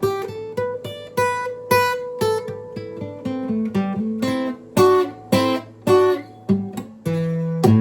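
Guitar music: a melody of single plucked notes, each ringing briefly, with a fuller chord ringing on near the end.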